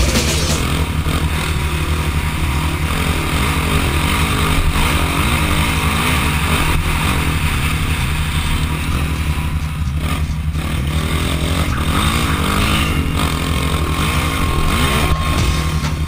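Suzuki LTZ 400 quad's single-cylinder four-stroke engine running under load while riding, the revs rising and falling repeatedly through the throttle changes.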